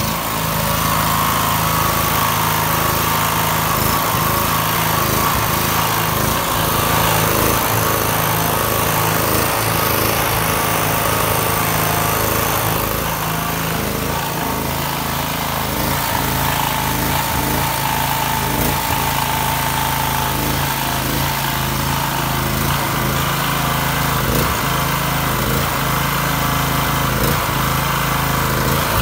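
Portable gasoline generator engine running steadily at constant speed while being warmed up, its pitch dipping slightly about halfway through.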